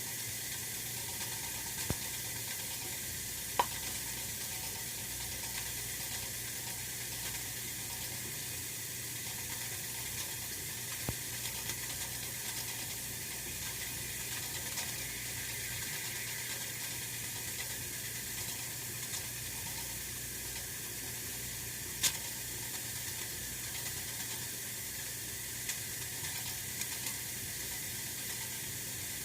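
Oil-filled radiator heater running: a steady sizzling hiss over a low hum, with a few sharp ticks, the clearest about three and a half seconds in and another near twenty-two seconds.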